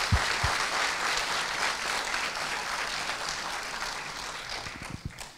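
Audience applauding, a dense even clapping that slowly fades and dies away near the end.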